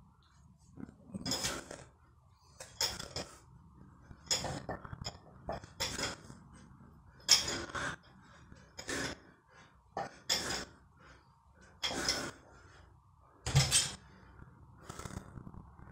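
Hard breaths with each repetition of a 40 kg barbell lift, about one every second and a half, ten in all. Near the end there is a dull, heavier thud as the bar goes down to the carpeted floor.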